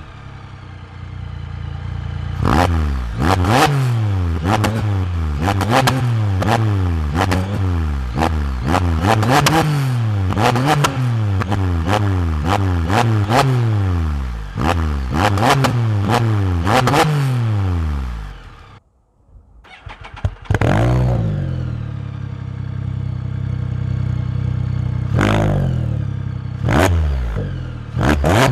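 Can-Am Spyder F3's Rotax 1330 three-cylinder engine being blipped over and over, about one quick rev a second, on the stock exhaust. After a short break it idles and is revved a few more times on an Akrapovic Sinister silencer.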